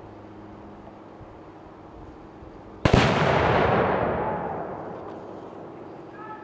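A single rifle shot setting off a Tannerite binary target explosive about three seconds in: one sharp boom followed by a rolling rumble that fades away over about two seconds.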